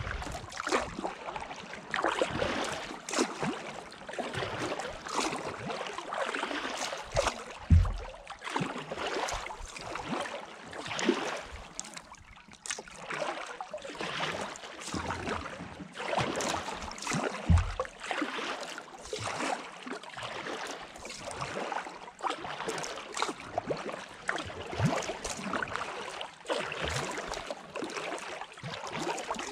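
Kayak paddle strokes: the blades dip and splash in the water in an irregular rhythm, with dripping between strokes. Two dull thumps stand out, about 8 and 18 seconds in, the first the loudest.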